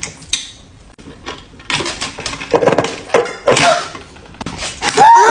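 Pencil sharpener working on a thick pencil: a run of clicks and short scraping rasps. Near the end comes a loud wailing cry that falls slowly in pitch.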